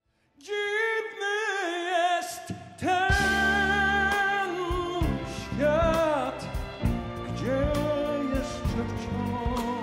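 Live band music. After a brief silence, a voice sings long, wavering held notes, and about three seconds in the band comes in with bass and drums.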